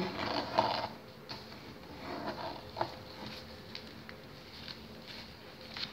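A sheet of printer paper rustling and being creased as it is folded on a table, with a few light taps and crinkles.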